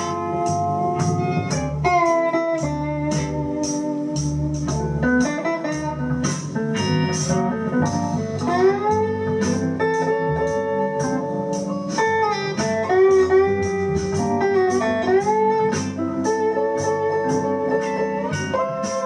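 Bottleneck slide blues on an electric guitar, an Aria Pro Vanguard through a small portable PA, playing held notes that slide up and down in pitch. A steady ticking beat of about two or three strikes a second runs under it.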